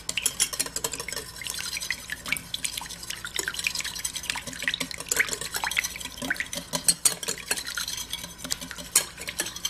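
Wire whisk beating eggs, water and melted coconut oil in a ceramic bowl: a steady run of quick clicks and scrapes as the wires strike the bowl.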